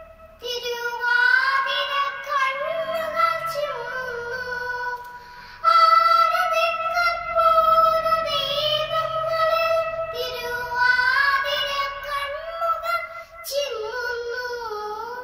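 A young girl singing solo, in phrases of long held notes that waver and bend in pitch, each new phrase starting after a short breath.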